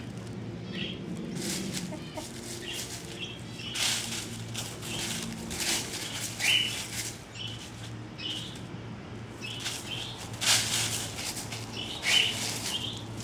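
Hens, buff Orpington and Wyandottes, scratching and kicking through a pile of dry leaves, which gives irregular crackly rustles every second or two. Short soft clucks come in between.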